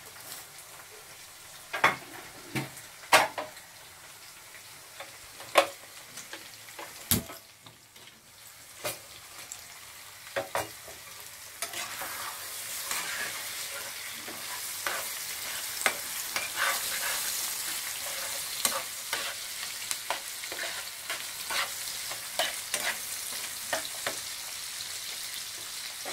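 Sharp clinks and knocks of a utensil on metal, then from about halfway a steady sizzle of eggs frying in oil with chopped onion and carrot in a non-stick pan, with scattered taps of the spatula as they are stirred and broken up.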